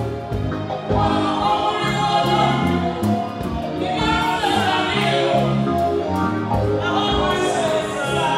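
Live gospel music: a woman singing lead into a microphone with backing singers, over a band with bass guitar and drum kit, played through a PA.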